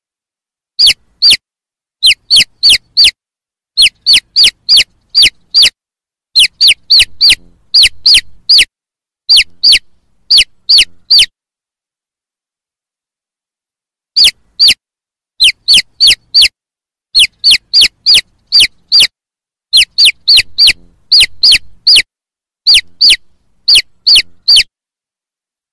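Baby chicks peeping: loud, high, short peeps that each slide downward, about three a second in runs of two to five, with a pause of about three seconds midway.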